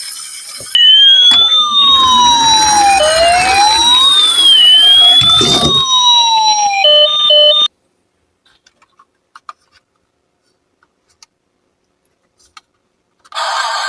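Emergency-vehicle siren wailing, two overlapping tones sweeping up and down over a low rolling rumble, ending with a short stepped electronic tone about seven seconds in. Then near silence with a few faint ticks, until music starts just before the end.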